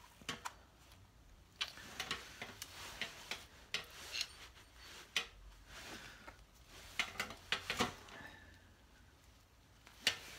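Irregular light clicks and taps of small metal parts being handled: the contact-breaker points plate seated in a motorcycle engine's alloy timing cover, and its short screws with spring washers picked up to fix it.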